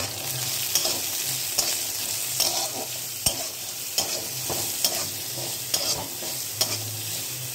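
Soaked chickpeas and onion frying in oil in a kadhai, a steady sizzle, while a spatula stirs them round the pan with irregular scraping strokes.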